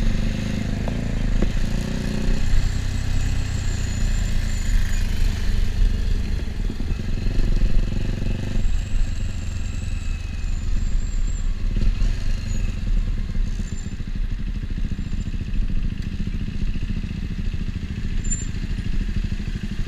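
KTM RC's single-cylinder engine and exhaust running at low road speed, the engine note shifting as the throttle is eased off and opened again.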